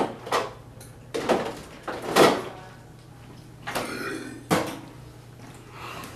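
Kitchen handling noises: a refrigerator door shut and things handled at the counter, giving a string of separate knocks and clatters, the loudest about two seconds in, over a low steady hum.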